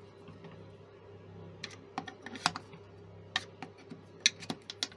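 Irregular sharp clicks and taps of a screwdriver and hard plastic as the back panel of a small Bluetooth speaker is fitted and screwed in, sparse at first and then about a dozen in the last three seconds. A faint steady hum runs underneath.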